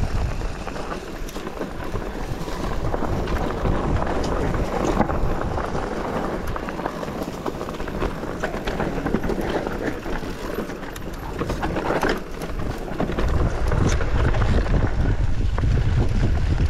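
Mountain bike riding down a rocky trail: tyres rolling over loose stones and the bike rattling with many small knocks, with wind buffeting the microphone, heaviest in the last few seconds.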